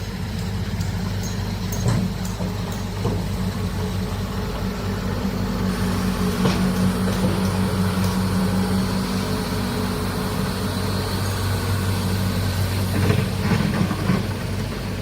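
Heavy diesel engine of a large excavator running steadily, with a few scattered knocks and clanks.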